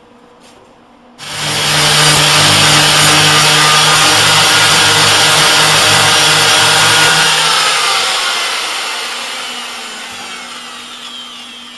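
Angle grinder with a flap disc starts suddenly about a second in and grinds the MIG welds on the steel cab steadily. About seven seconds in it is let go and spins down, its whine falling in pitch as it fades.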